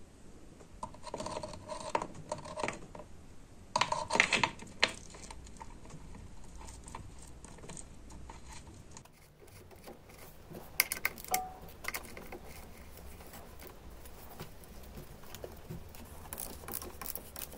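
Scattered clicks, taps and short rattles of hand tools and small parts being handled, in clusters about a second in, around four seconds, around eleven seconds and near the end.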